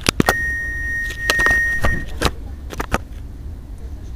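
A single steady electronic beep held for about two seconds, from a Bombardier Regio 2N train standing with its doors open, with a few sharp clicks around it and a low steady rumble underneath.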